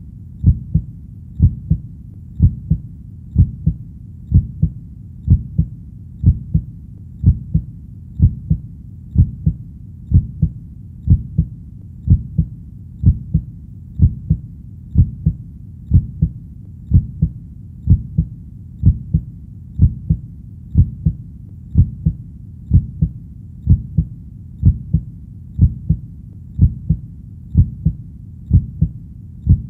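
Human heartbeat: a steady, even rhythm of low double thumps (lub-dub), roughly one beat a second.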